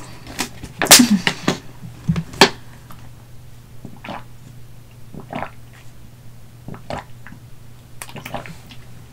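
A plastic water bottle is handled with a few sharp crackles and clicks. Then water is drunk from it in a series of swallows, recorded close to the microphone.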